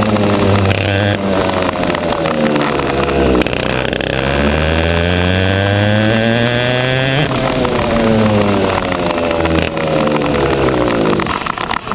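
Go-kart engine heard from on board. Its pitch falls as the kart slows, rises through about three seconds of acceleration, falls again under braking, then drops lower and quieter near the end.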